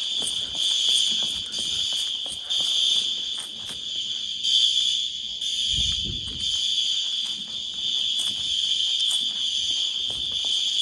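School fire alarm horns on a Notifier NFS2-640 system sounding the evacuation signal during a drill. The signal is a continuous, high-pitched tone.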